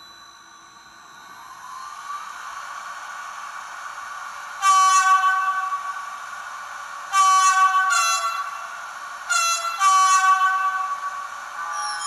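Märklin 39848 H0 model of a DB class 182 electric locomotive, its ESU sound decoder playing through the small onboard speaker: a steady electric standing hum with a short rising tone about two seconds in, then four horn blasts, the second dropping in pitch partway through.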